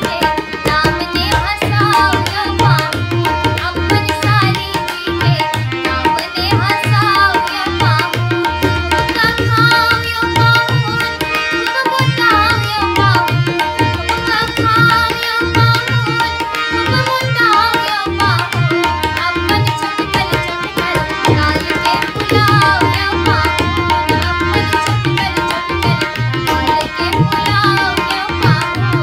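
Tabla playing a steady rhythm with frequent deep bass strokes, accompanying a harmonium's held notes and a young woman singing a Maithili folk song.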